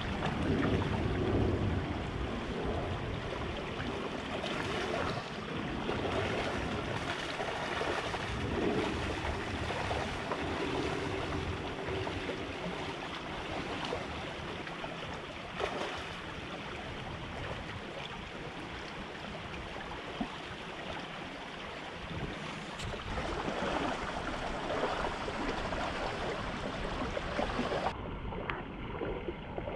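Shallow gravel-bed creek flowing over a riffle: a steady rush and burble of running water.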